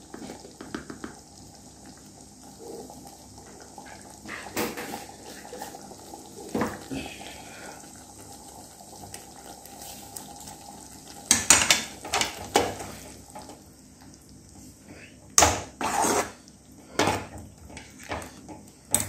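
Steel ladle clinking and scraping against an aluminium kadai while a tomato gravy is stirred. A few single clicks come early, then repeated knocks come in clusters through the second half.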